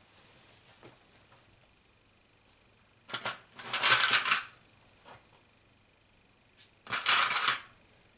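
Small pink plastic box of red sewing clips rattling in two short bursts, the clips jostling inside as the box is handled, once a little past the middle and again near the end.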